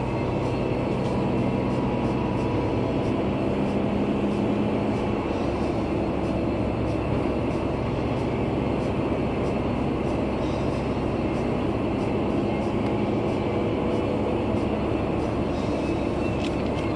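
Steady running noise of a car driving at an even speed, heard from inside the cabin: a constant low engine hum mixed with tyre and road noise.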